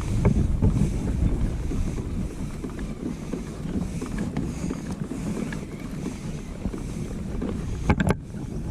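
Wind buffeting the microphone on a kayak on open water: a steady low rumble, with a couple of sharp clicks near the end.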